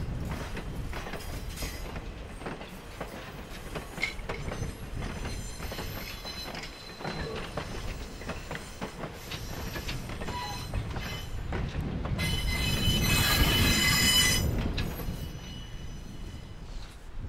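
Passenger train coaches rolling along the track with a low rumble and scattered wheel clicks. About twelve seconds in, a loud, high-pitched wheel squeal rises and fades over roughly two seconds.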